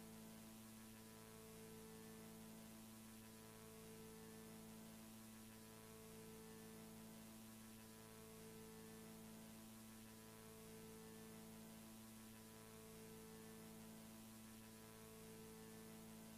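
Near silence: a faint steady electrical hum with tape hiss, the noise floor of a soundtrack-less VHS transfer, with a fainter tone in it that comes and goes about every two seconds.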